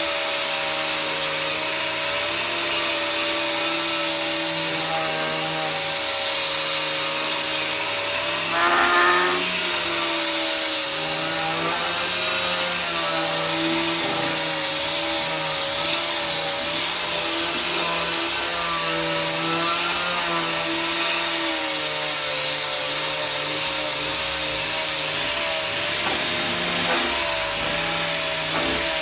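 Electric sander running steadily while sanding walnut wood, its motor tone wavering slightly in pitch.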